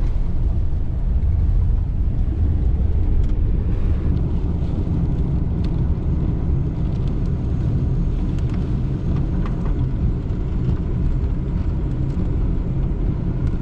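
A vehicle driving at steady speed: a continuous low rumble of engine and road noise.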